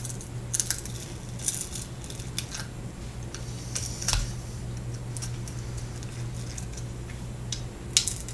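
Flat plastic pick prying the front display assembly of a Samsung Focus i917 away from its frame, making a scattered series of small clicks and scratches as it is run sideways along the edge. A steady low hum runs underneath.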